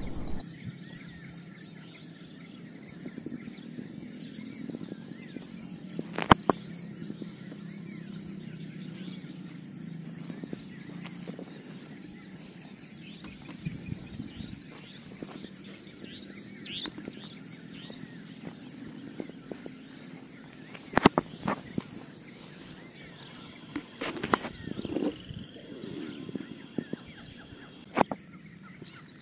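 Outdoor insect chorus at dusk: crickets keep up a steady, high-pitched, rapidly pulsing trill. A few bird chirps and several sharp clicks and knocks are scattered through it.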